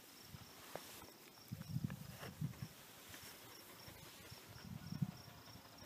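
Faint insect chirping, likely crickets, pulsing steadily about three times a second, with soft low rustling twice.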